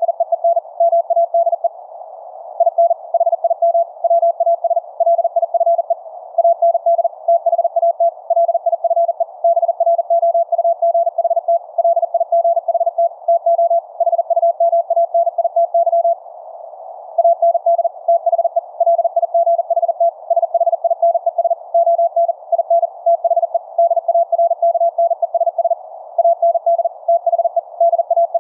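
Very fast Morse code (QRQ CW): a single mid-pitched tone keyed on and off rapidly, with brief pauses about 2 s and 16 s in. The Elecraft K3S's 630-meter transmission is heard as its 4th harmonic through a C.Crane Skywave SSB shortwave radio in LSB, with a narrow band of receiver hiss between the characters.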